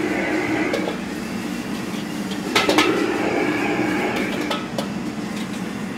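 Noodles being stir-fried in a wok: a metal spatula scraping and knocking against the wok over a steady rush of high-heat cooking noise, with a burst of clattering about two and a half seconds in.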